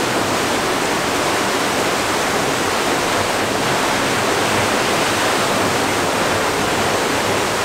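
River water rushing through the mill race of a working watermill, a steady, really noisy rush of churning water.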